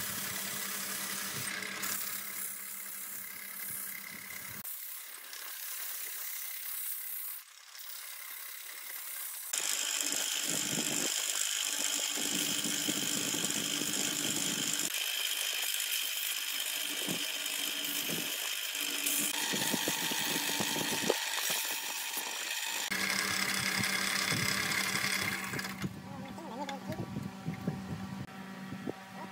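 An electric wood lathe running with a steady motor hum, with the hiss and scrape of a hand-held hollowing tool cutting inside the spinning wood and sandpaper rubbing the spinning stem. The sound shifts abruptly several times.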